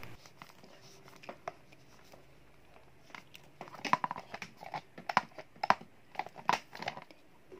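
Hands handling a plastic spin-mop head and its handle. Faint, sparse ticks at first, then from about three seconds in a run of irregular light clicks, knocks and crackles as the mop head is lifted among foam packing.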